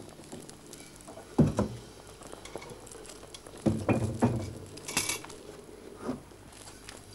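Pots and cooking utensils knocking and clinking as someone handles cookware at a stove. There is a sharp knock about a second and a half in, a cluster of knocks around four seconds, a short scrape near five seconds, and a lighter knock just after six.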